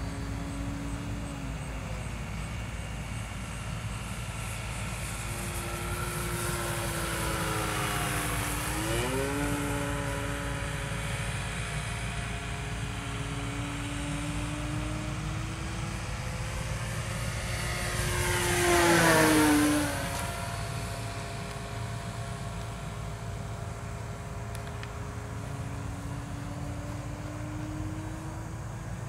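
Electric radio-controlled model airplane, driven by an E-flite 40 brushless motor turning a 13x10 propeller, droning in flight. Its pitch sweeps down as it passes about 9 seconds in, and again at about 19 seconds on the loudest pass.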